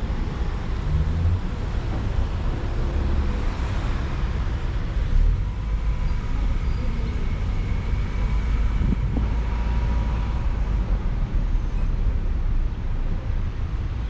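Steady low rumble of a moving vehicle, with no sudden events.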